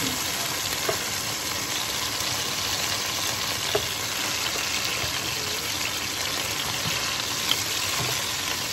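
Chicken breasts sizzling as they fry in oil in a pan, a steady hiss over the running kitchen exhaust fan. A few light clicks of metal tongs against the pan come about a second, four seconds and seven and a half seconds in.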